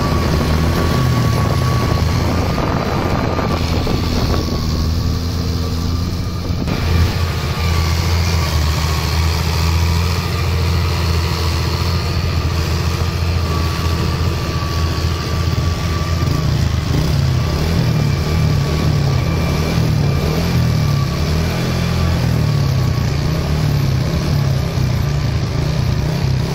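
Farm tractor's diesel engine running steadily under load as it drives a rear rotary tiller through flooded paddy mud, with a thin steady whine above the low engine hum for the first half or so.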